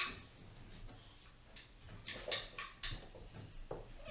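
Bare hands and feet knocking and scuffing against a wooden door frame as a child braces himself to climb it: a sharp knock at the start, then a few soft scuffs and knocks about two to three seconds in.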